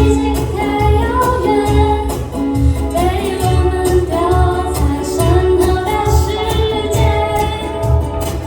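Live pop song played by a student band: female voices singing the melody over ukuleles and drums keeping a steady beat of about two strokes a second.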